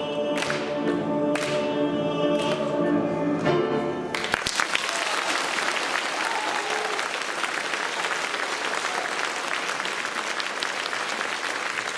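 A group of singers with piano accompaniment ends a song on a final held chord, which cuts off about four seconds in. Audience applause follows.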